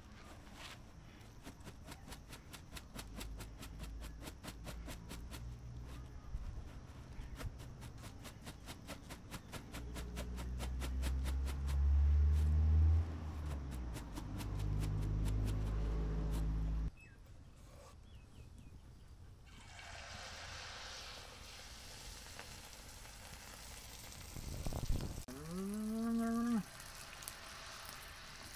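Woven bamboo tray of rice shaken over a stone mortar, tapping at a few taps a second. A loud low droning comes in partway through and cuts off suddenly. Near the end a cow moos once, its call rising and then falling.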